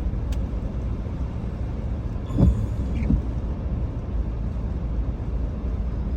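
Steady low road and engine rumble heard from inside a moving car, with a brief louder noise about two and a half seconds in.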